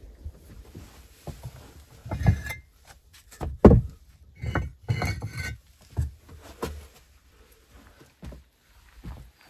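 Clay bricks knocking and scraping against wooden boards as they are lifted and handled. The loudest thud comes a little under four seconds in, with rough scraping just after it and a few lighter knocks later.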